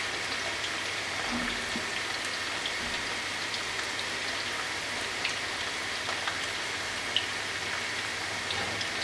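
Battered chicken pieces deep-frying in very hot oil: a steady sizzle with scattered small pops and crackles.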